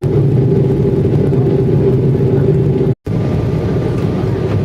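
Airliner cabin noise on approach to landing: a steady drone of engines and airflow with a low hum. It cuts out for a split second about three seconds in, then carries on as before.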